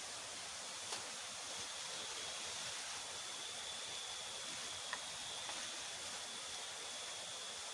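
Steady rush of flowing river water. A thin, steady high tone joins about a second and a half in, and there are two faint clicks.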